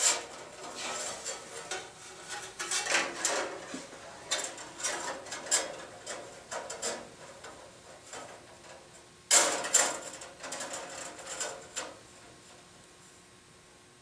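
Steel bandsaw blade being worked by hand onto the saw's wheels: irregular metallic rattling, clinking and scraping, with a sharp clank at the start and another about nine seconds in. The handling noise dies away near the end.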